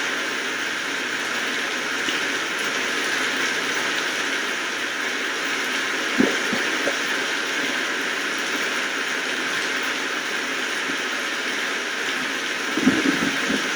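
Steady rain falling, an even hiss. A louder low knock comes about six seconds in, and a short cluster of them near the end.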